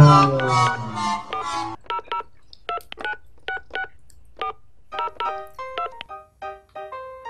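A falling musical sting at the start, then a run of short electronic beeps at uneven intervals, like smartphone keypad tones as digits are tapped, over light background music.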